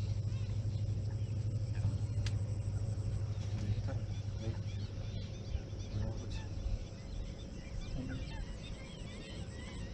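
Scattered short calls of water birds over a steady low hum, which is the loudest sound throughout.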